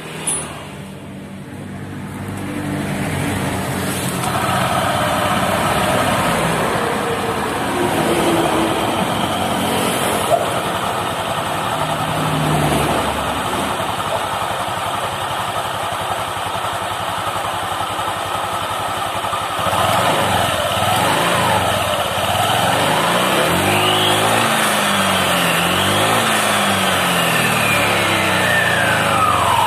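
Honda Vario 150 scooter engine and CVT transmission running and being revved several times in the second half, with a rough, clattering 'kelotok-kelotok' note on the throttle. The mechanic says this is typically a worn pulley bearing (6902) and worn clutch-side parts.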